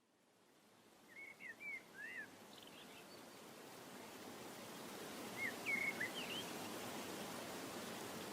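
Birds chirping in two short bursts of quick gliding notes over a steady outdoor noise that fades in from silence.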